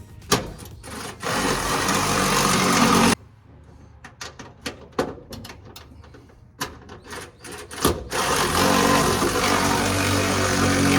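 Electric drill running under load, drilling mounting holes, in two runs of about two and three seconds, with clicks and knocks of handling between them.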